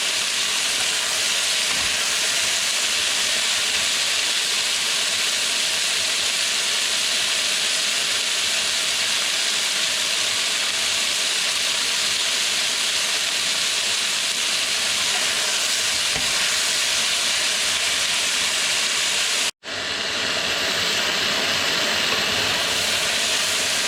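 Chicken pieces frying in hot oil in a pan: a steady sizzle, browning golden. It cuts out for an instant near the end, then carries on.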